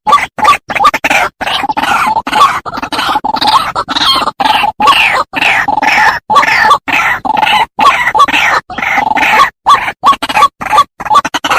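White-breasted waterhen (ruak-ruak) giving its harsh, croaking calls over and over in quick succession. The calls are broken by many brief, abrupt silences.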